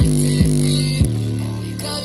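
Electronic music played through a JBL Charge portable Bluetooth speaker, led by deep bass notes that each start with a quick downward slide and then ring on.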